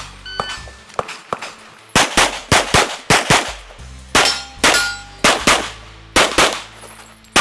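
A shot timer gives a short beep. About a second and a half later, a compensated, red-dot-sighted competition pistol opens fire in rapid pairs of shots, about fourteen in all, with short gaps between the pairs.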